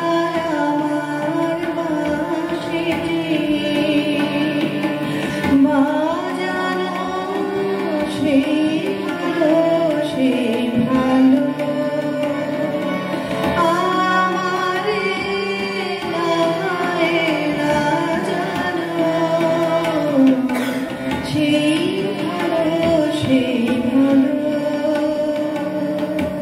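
A woman singing a melody to her own harmonium accompaniment, with tabla drums played alongside. The harmonium holds steady chords beneath the voice.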